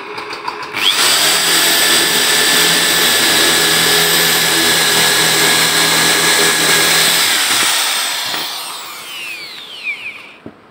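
Crown CT10128 600 W corded impact drill boring a 10 mm bit through a block of wood. It starts abruptly about a second in and runs at steady speed for about six seconds. Then it is released and the motor spins down with a falling whine.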